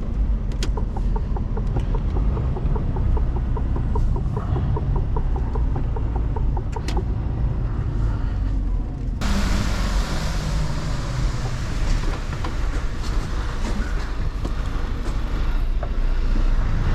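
Mercedes Actros truck running on the road, a steady low rumble. Over the first seven seconds a regular ticking of about three ticks a second sounds above it. About nine seconds in, a loud hiss of road and tyre noise cuts in suddenly.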